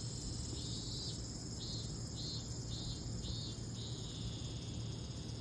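Crickets chirping in short trilled bursts about every half second, then a longer trill near the end, over a steady high-pitched insect chorus and a low hum.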